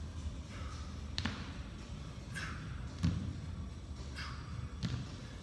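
Hex dumbbells set down on a rubber gym floor during renegade rows: three dull knocks, one about every two seconds, with a short exhale between each.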